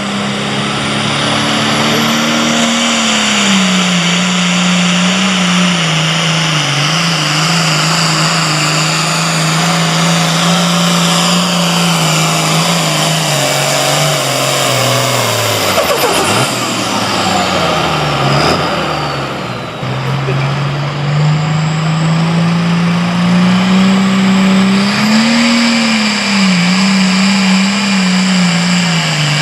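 Super Farm class pulling tractor's turbocharged diesel engine running hard under load. Its pitch sinks low about halfway through and climbs back up, with a high whine falling in pitch as the engine comes down.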